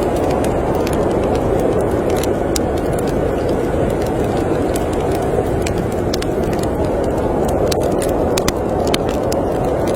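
Steady snowstorm wind as a dense, even rush, with frequent small, sharp crackles and pops from a wood fire in a fireplace scattered through it.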